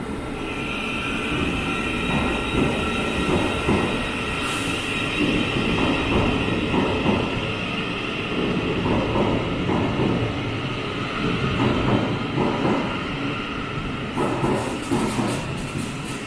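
Thameslink Class 700 electric train pulling out of an underground platform, its traction motors giving a steady high whine that fades after several seconds, over a rumble and the clack of wheels over rail joints. Near the end there are sharper high clicks as the next train draws in.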